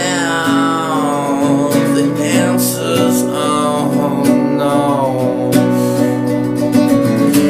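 Nylon-string classical guitar being played, with a man's voice singing over it in places.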